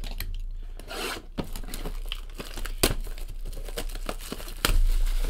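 Plastic shrink wrap being torn and peeled off a sealed trading card box, crinkling and crackling in irregular snaps, with one sharper snap near the end.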